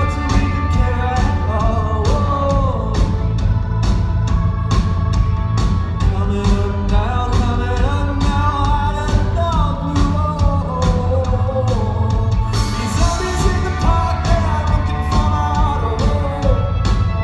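Live rock band with a male lead singer: sung melody over a steady bass and drum beat.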